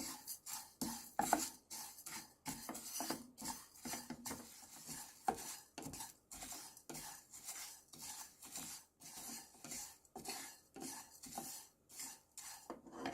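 Kitchen utensil scraping and clinking against a dish in quick, irregular strokes.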